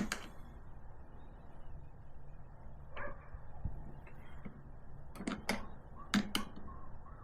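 Mostly quiet, with a handful of short, sharp clicks and light knocks: one about three seconds in, then four close together near the end, as tools and the plastic toolbox are handled.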